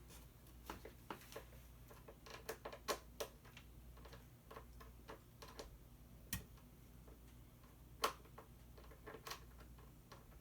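Faint, irregular clicks and taps of a screwdriver working at screws in a plastic ride-on toy, with sharper knocks about 3 seconds and 8 seconds in.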